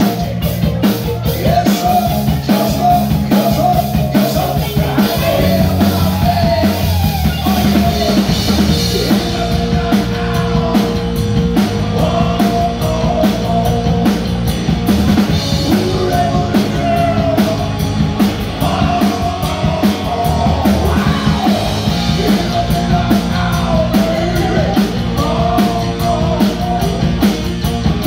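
Live rock band playing loud through amplifiers: electric guitar, bass guitar and drum kit.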